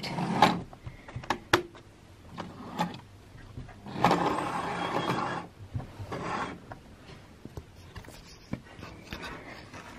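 Hornby Railroad+ Class 47 model locomotive running along the track, its motor and wheels making a soft rushing whir that is loudest about four to five and a half seconds in, with scattered small clicks.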